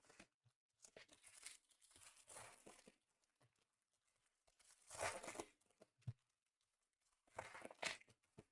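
Trading card pack wrappers being torn open and crinkled, in several short rustling bursts, the loudest about five seconds in and another near the end.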